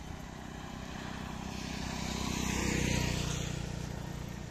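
A motor vehicle passing by on the road, its engine and tyre noise growing louder to a peak about three seconds in, then fading as it moves away.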